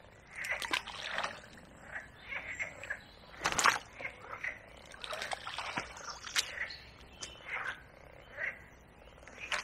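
Frogs croaking, short calls in an irregular series, with one louder call about three and a half seconds in.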